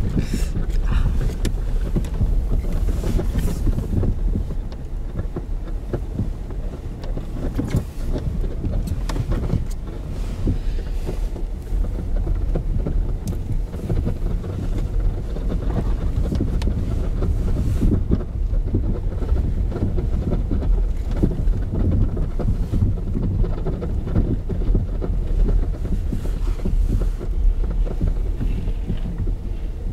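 Car driving slowly over snowy road, heard from inside the cabin: a steady low rumble of engine and tyres with small knocks and bumps throughout.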